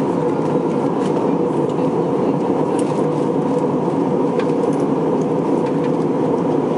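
Steady in-flight cabin noise of an Airbus A321 airliner: the even roar of engines and airflow over the fuselage, heard from a window seat, with a few faint ticks.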